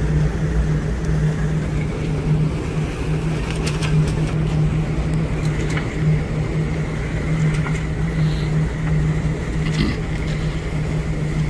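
Steady low machinery hum from the container ship Maersk Montana, over a rushing, fluttering noise of wind and sea, with a few faint ticks.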